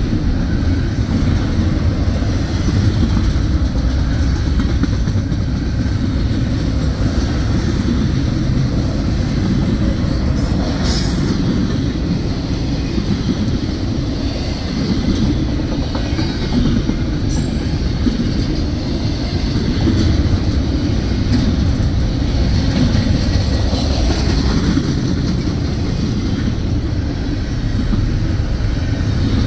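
A train running along the rails: a steady low rumble of wheels on track.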